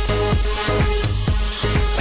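Electronic dance music with a steady, fast beat and heavy bass.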